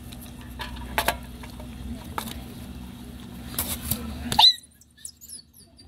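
Metal clinks and scrapes of rice being served from an aluminium pot onto a steel plate: a few sharp clinks over a steady low hum, the loudest and ringing about four and a half seconds in. After that it is much quieter, with faint small clicks.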